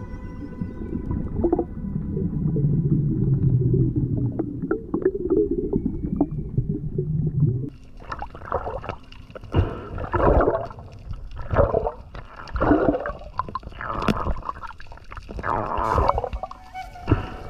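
Water rushing and gurgling around an underwater action camera. It starts as a low rumble, and from about halfway through turns into a run of gurgling surges, a little more than one a second.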